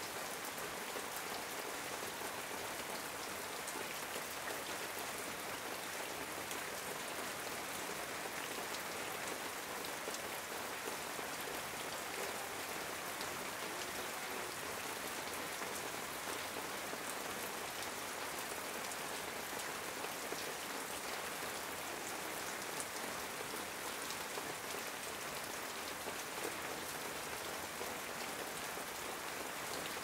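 Heavy rain falling steadily on corrugated metal roofing: a dense, even patter of drops.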